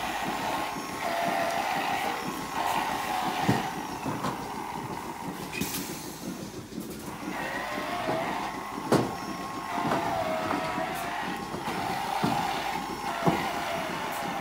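Milking parlour equipment running: a steady mechanical whir and hiss with wavering tones, broken by three sharp metallic clanks.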